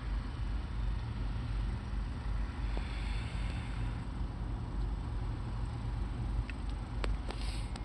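Diesel truck engine running steadily, a low drone heard from inside the cab, with a few faint clicks near the end.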